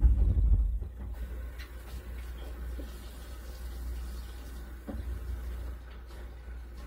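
Kitchen background noise: a steady low hum with a faint hiss, a loud low rumble in the first second, and a light knock about five seconds in.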